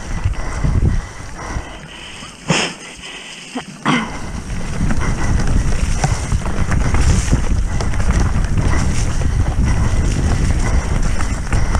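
Wind rushing over the microphone and the rattle of a mountain bike descending at speed. A quieter spell about two seconds in is broken by two sharp knocks a little over a second apart.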